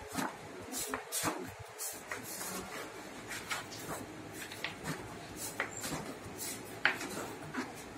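Pages of a wallpaper sample book being turned one after another by hand. The thick wallpaper sheets rustle and flap with a run of short crackles, the sharpest snap coming near the end.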